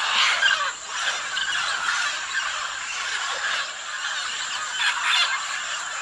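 A flock of macaws calling over one another in a dense, continuous chorus of harsh squawks.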